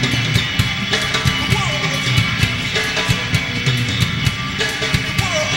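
Live band playing: a drum kit keeping a steady beat under electric guitar and bass.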